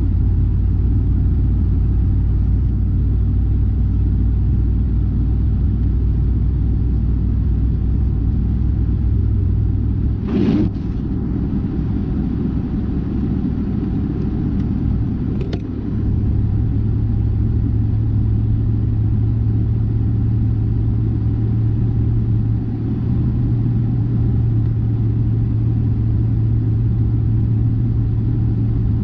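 Steady low rumble of a car's engine and road noise heard from inside while driving on the highway, with a brief sharp click about ten seconds in and a fainter one some five seconds later; the low drone shifts in pitch about halfway through.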